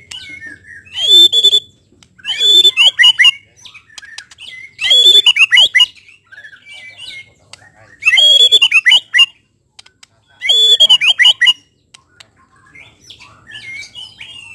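White-rumped shama singing: five loud song phrases of about a second each, a few seconds apart, with softer chirps in between.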